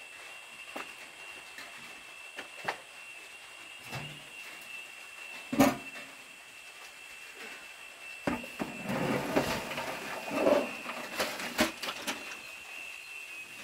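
Irregular knocks and clattering of things being handled: a sharp knock about halfway through and a busier run of clatter near the end, over a steady high-pitched tone.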